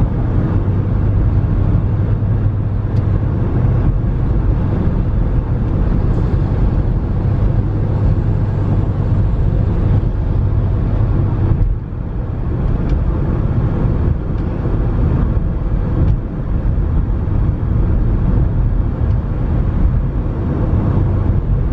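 Car driving along: a steady low engine hum and road noise from the tyres. The sound briefly dips in loudness about twelve seconds in and again about sixteen seconds in.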